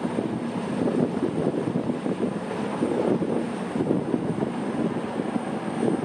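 CrossCountry Voyager diesel multiple unit running past, a steady drone from its underfloor diesel engines together with the rumble of its wheels.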